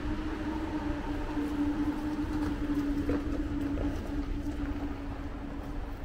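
A vehicle running: a steady droning tone over a constant low rumble.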